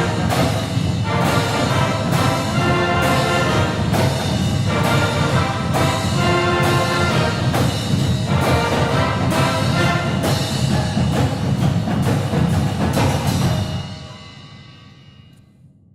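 Pep band brass and drums playing a goal song with heavy reverb added, the drum beats landing about once a second. The band stops about 13 seconds in and the sound dies away in a long echoing tail.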